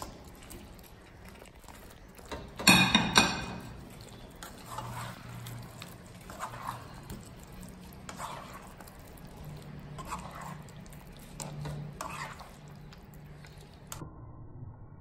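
Spatula stirring and tossing fried chicken pieces through thick sauce in a non-stick wok. There is a loud clatter about three seconds in, then soft scraping strokes every second or two.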